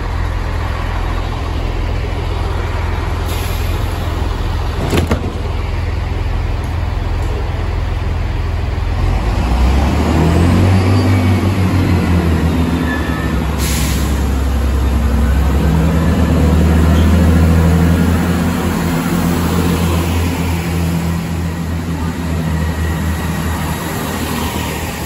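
Diesel engines of a Chiltern Railways multiple-unit train rumbling steadily at the platform. About ten seconds in they power up to a louder, deeper engine note as the train pulls away, and the sound eases off near the end. A sharp click comes twice.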